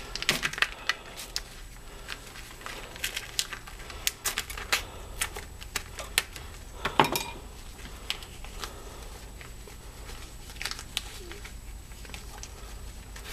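Light clicks, taps and scrapes of a small hand tool against the metal body of a Tecumseh lawn mower carburetor and loose small parts on the bench, scattered irregularly with a sharper knock about seven seconds in.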